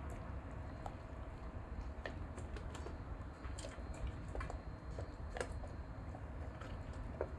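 A German shepherd eating: irregular small clicks and crunches of chewing, over a steady low hum.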